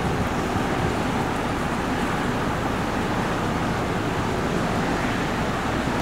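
Blizzard wind blowing as a steady rush of noise, with a low rumble of wind on the microphone.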